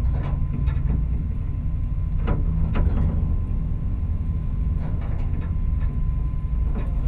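A loud, steady low rumble with a few faint short knocks through it.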